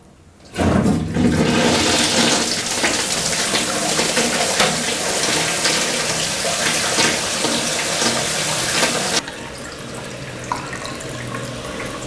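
Plastic toilet cistern flushed by pulling a makeshift wire rigged in place of its handle. A loud rush of water starts about half a second in and cuts off abruptly about nine seconds in, leaving quieter running water.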